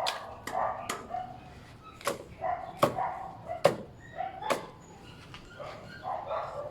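Repeated short growling calls from an unseen animal, which the listener takes for a frog or toad, mixed with a few sharp clicks.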